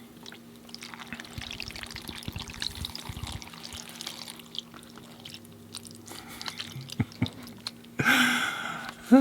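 Coconut water being poured over a bowl of fresh cut fruit, a trickling, splashing pour for the first few seconds. Near the end comes a loud, breathy vocal sound that falls in pitch.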